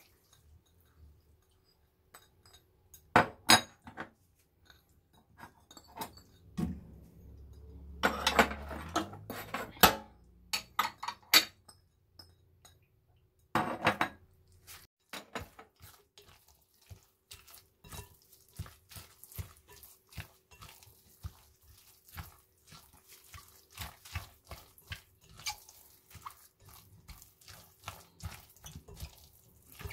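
Kitchen utensils clinking and knocking against bowls and dishes while the tofu mixture for ganmodoki is prepared: a few separate bursts of clatter, then a long run of small, quick clicks and taps.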